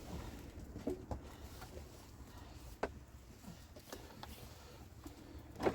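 Quiet room tone with a low hum and a few faint, scattered clicks and knocks, one louder near the end.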